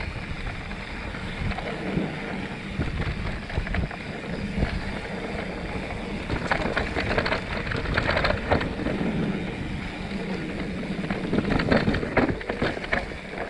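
Mountain bike riding down a dirt forest trail: tyres rolling over dirt and roots and wind buffeting the microphone. The bike clatters and rattles over bumps, busiest about six to nine seconds in and again near the end.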